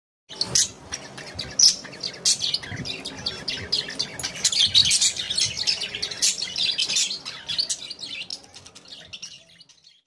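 A flock of budgerigars chattering: a dense, continuous stream of quick high chirps that thins out and fades near the end.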